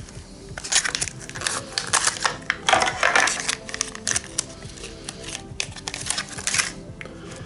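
Stiff plastic blister packaging crackling and clicking as it is pried and torn open by hand: a dense run of sharp crackles from about a second in until near the end, loudest in the middle, over steady background music.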